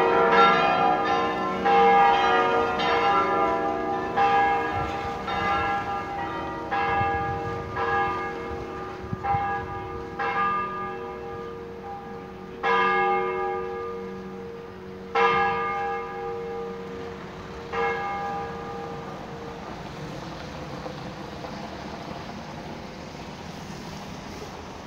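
Full peal of the basilica's church bells ringing together and winding down. The overlapping strokes thin out and slow until only a few single strikes come, about two and a half seconds apart, around the middle. The ringing hum then dies away into faint background noise.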